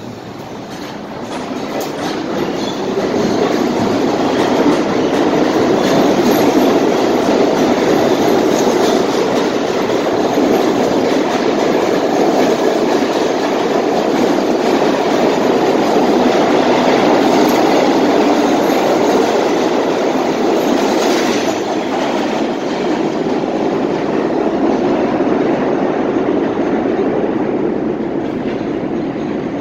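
R32 subway train pulling out of a station and passing close by, a steady loud rumble of wheels on rail with occasional clicks. It builds over the first few seconds as the train gathers speed and eases off near the end as the last car leaves.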